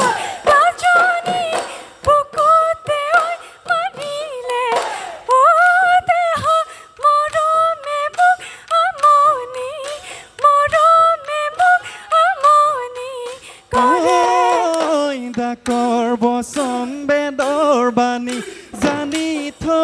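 Assamese Bihu song: a woman sings a high, ornamented melody over sharp dhol drum strokes. About 14 seconds in, a male singer takes over in a lower voice.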